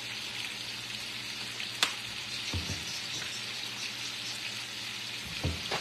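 Chopped meat and chorizo sizzling steadily in a frying pan. There is a sharp click a little under two seconds in, and a soft low knock twice.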